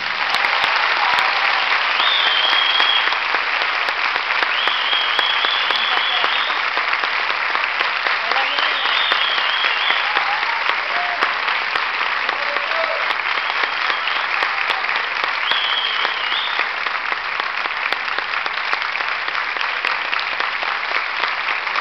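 Theatre audience applauding steadily after the music stops, with a few scattered cheers over the clapping.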